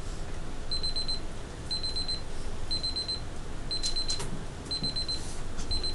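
Digital timer alarm beeping: a high, rapidly pulsed beep of about half a second, repeating once a second from about a second in, signalling that the set work time is up. A few faint clicks sound over it.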